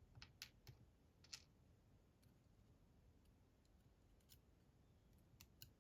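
Faint, scattered small clicks of tiny metal lock pins from a disassembled Bramah-style pump lock being handled and set down, a few in the first second and a couple near the end.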